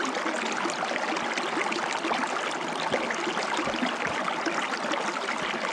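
Water running and trickling over rocks in a shallow mountain creek, a steady splashing rush with many small splashes.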